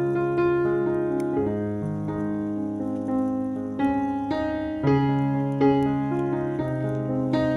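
Background piano music: a slow instrumental piece of held chords and single notes changing about once a second.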